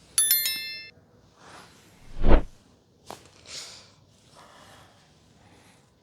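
A bright bell-like ding of several high ringing tones right at the start, fading within a second. About two seconds in comes a short, deep thud, plausibly the thrust of a chiropractic adjustment, followed by a few soft rustles and breaths.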